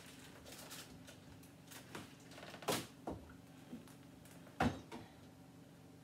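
Food containers being moved around inside an open refrigerator: a few scattered knocks and clatters against the shelves, the loudest about two-thirds through, over a faint steady hum.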